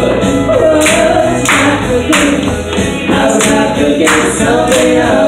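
Honky-tonk country music with several voices singing together, driven by a sharp beat about every two-thirds of a second.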